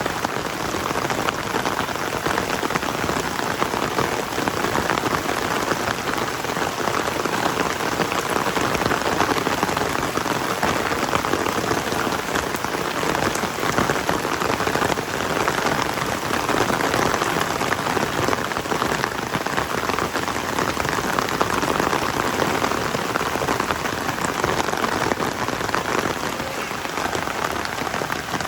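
Heavy rain falling steadily, a dense even patter of many drops.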